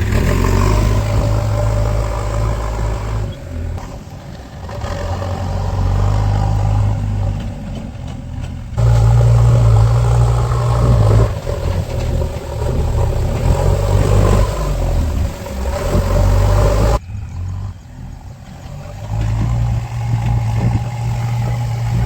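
Heavy diesel engine of a construction vehicle running and revving, its sound rising and falling and changing abruptly a few times.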